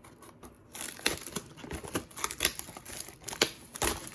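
A cardboard blaster box of trading cards being opened by hand and its foil card packs handled: irregular rustling and scraping with sharp clicks.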